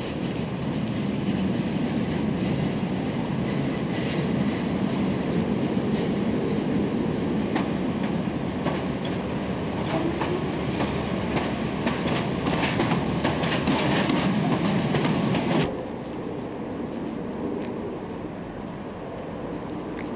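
Old electric suburban train pulling out: steady running rumble with wheels clattering and screeching over the rails and points, a dense run of sharp clacks over several seconds that cuts off suddenly. After that a quieter steady train rumble.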